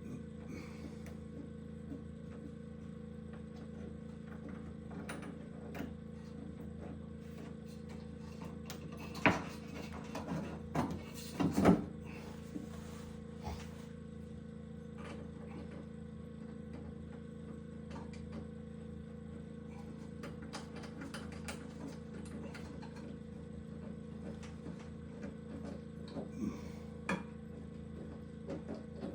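A handful of knocks and clatters over a steady low hum, the loudest cluster about nine to twelve seconds in and a few more near the end.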